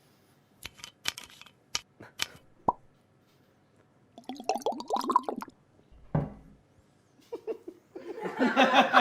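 A handful of sharp clicks and pops in quick succession, then laughter that grows louder near the end.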